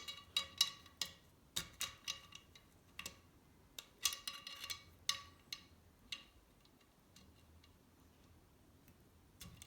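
Small metal shotgun parts clicking and clinking as they are handled, each click with a brief metallic ring. There are a dozen or so clicks in the first six seconds, then a short quiet spell before one more click near the end.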